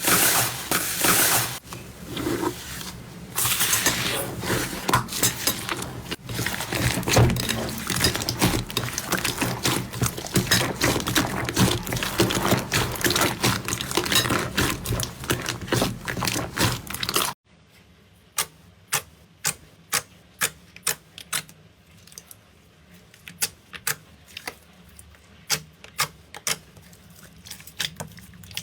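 Slime being squeezed and kneaded by hand, a dense run of wet crackles and squelches; about 17 seconds in it cuts to a much quieter clip of sharp separate pops, two or three a second.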